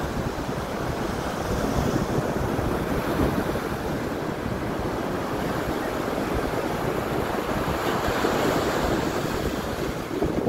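Surf washing in on a sandy beach, a steady rush of waves with wind noise on the microphone.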